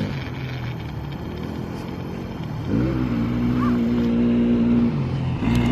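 A vehicle's engine picks up speed about two and a half seconds in and then runs at a steady pitch, over wind noise from driving.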